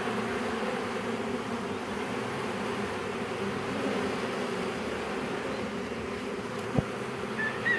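A mass of honeybees from a freshly installed package buzzing with a steady hum, with a single sharp click about seven seconds in.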